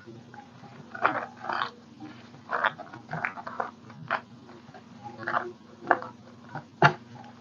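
Irregular short rustles and scrapes with a couple of sharp clicks near the end, the sounds of hands working with paper and tools on a craft tabletop.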